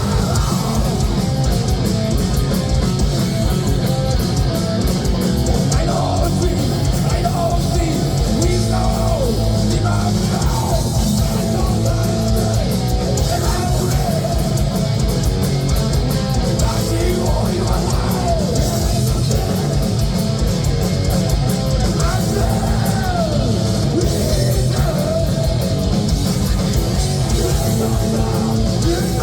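Heavy metal band playing live: distorted electric guitars with sliding pitch bends over rapid, driving bass-drum beats.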